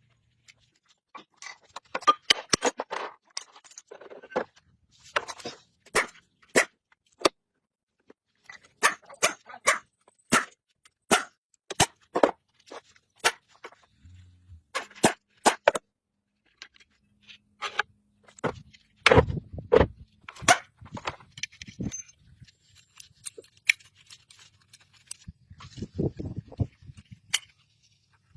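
An irregular run of sharp clicks and knocks, dozens of them, some in quick clusters, with short pauses between.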